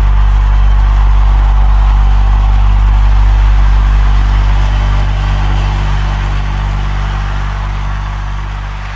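Instrumental worship music: a sustained low drone of held bass notes under a soft wash of sound, fading out over the last few seconds.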